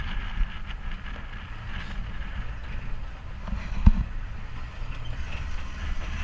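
UTV engine running with a steady low rumble as it drives over a rough dirt trail, with one sharp thump a little before four seconds in.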